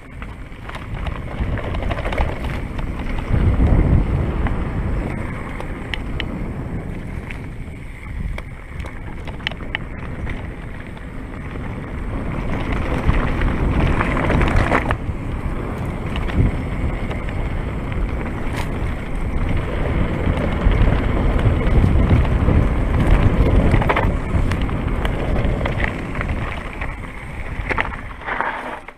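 Mountain bike riding a rough, rooty trail: wind rushing over the camera microphone together with tyre roll and sharp clicks and rattles from the bike. The noise swells and eases with speed and dies away at the very end as the bike slows.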